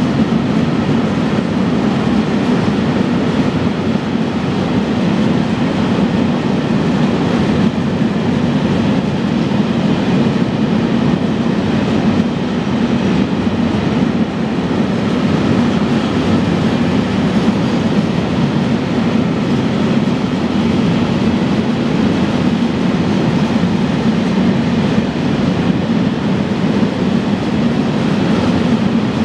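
Freight train of Lotras rail tank wagons rolling steadily past: a constant noise of steel wheels running on the rails, strongest in the low range, with no change in pace.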